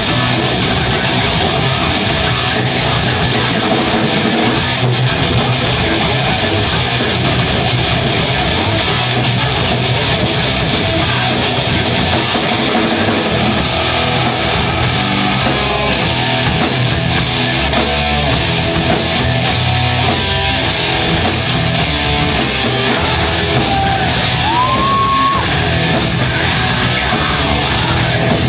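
Live rock band playing loud: electric guitars and a drum kit with a steady cymbal beat, and a short rising tone about three-quarters of the way through.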